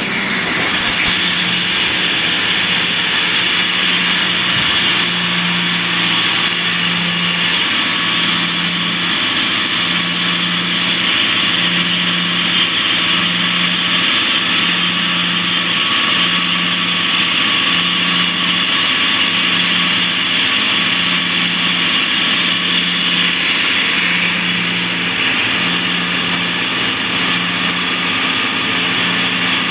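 A down-the-hole drill rig running steadily as it drills into rock, heard from inside the rig's cab. A low hum under the steady noise pulses about once a second.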